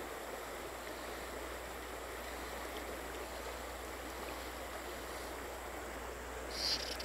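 Small, shallow river running over stones: a steady rush of flowing water. A brief higher-pitched sound comes near the end.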